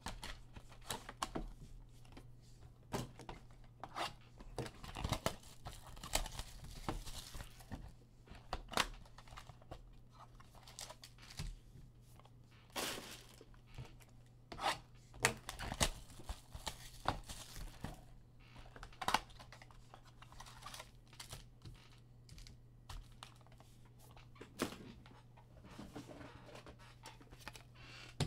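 Packaging of a sealed Bowman Chrome trading-card box being torn open and handled: irregular plastic crinkling and tearing with scattered sharp crackles, over a faint steady low hum.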